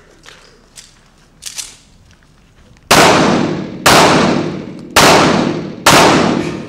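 Four gunshots fired in quick succession, about a second apart, each trailing off in a long echo.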